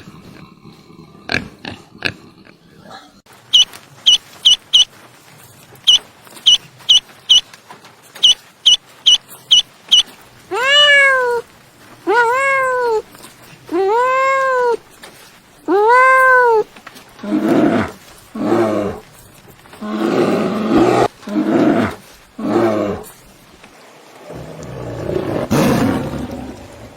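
A run of different animal calls: groups of short, high chirps, then four drawn-out calls that rise and fall in pitch, then several rough, roar-like calls.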